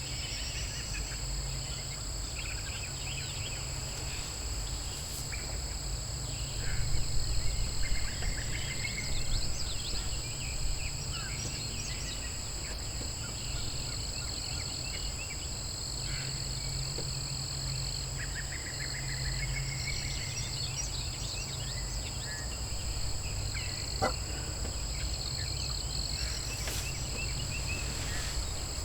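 Outdoor woodland ambience: birds calling in scattered short notes over a steady high insect hum and a low rumble, with a louder run of calls about seven seconds in and a single sharp click later on.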